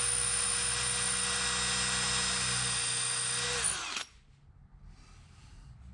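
Cordless drill running at full speed with a 6 mm bit, drilling into the Ford Explorer's door metal, for about four seconds, then winding down and stopping. The bit is making poor headway: it is worn.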